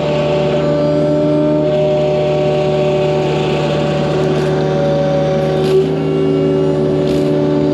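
Excavator with a hydraulic mulcher head running steadily: a constant diesel engine hum under several hydraulic whine tones that shift pitch a few times as the load changes, with a few light ticks.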